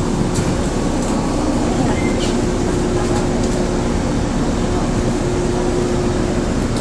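Train interior noise as the train moves slowly past a station platform: a steady running rumble with a steady low hum and a few faint ticks.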